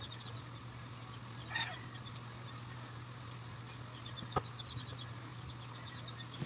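Steady low hum with a short animal call about a second and a half in, two runs of quick high chirps, and a single sharp click at about four and a half seconds.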